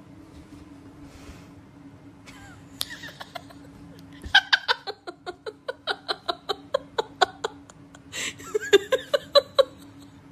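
A person laughing in a quick string of short 'ha' bursts, about four a second, starting about four seconds in, then another burst of laughter near the end, over a faint steady hum.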